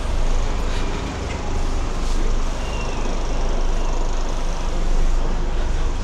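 Steady rumble of road traffic on a town street, with no single sound standing out.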